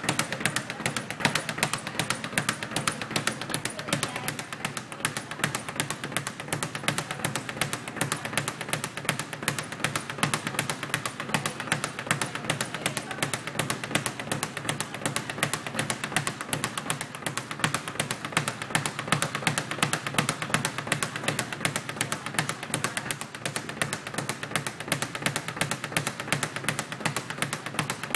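Speed bag being punched without a break, rattling rapidly off the wall-mounted rebound platform in a fast, even stream of taps.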